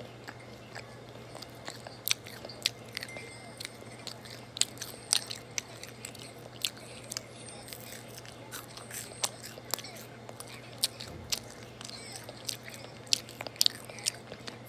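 Close-miked biting and chewing of French fries, with sharp crunches and wet mouth clicks at irregular intervals over a steady low hum.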